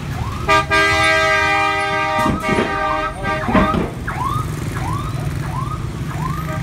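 Busy city street traffic, motorbike and car engines running, with a long steady vehicle horn blast starting about half a second in and lasting about two and a half seconds. A short chirp rises and falls about twice a second throughout.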